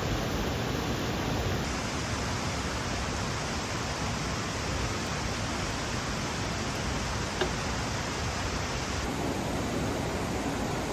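Steady rushing of flowing water from a mountain stream, with a single small click about seven and a half seconds in.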